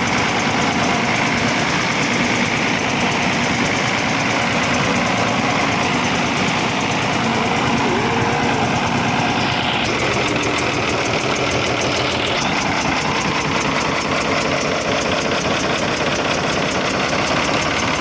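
Ashok Leyland Hino-series diesel engine idling steadily with a rapid, even ticking over its running. This is the abnormal engine noise being chased. A loose exhaust manifold nut is one suspect.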